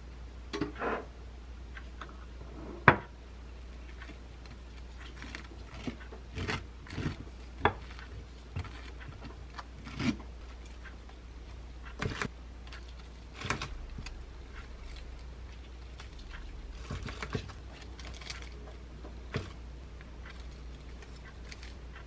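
Toast, lettuce and tofu tenders being placed by hand and with chopsticks on a ceramic plate: scattered light taps and clinks, with one sharper knock about three seconds in.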